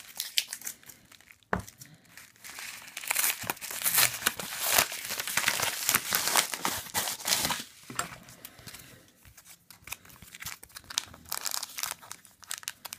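Kraft paper envelope being torn open and crinkled by hand, in dense irregular bursts, with one sharp tap about a second and a half in. Near the end, a clear plastic card sleeve crinkles as a card is handled.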